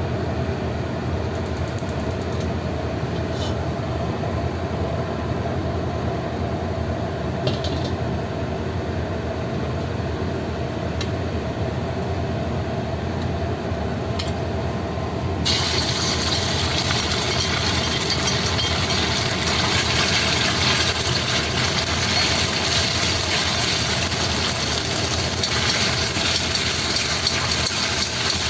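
A steady low hum with a few faint ticks, then about halfway through a loud, even sizzling starts suddenly and keeps going: marinated pork strips frying in hot oil in the pan.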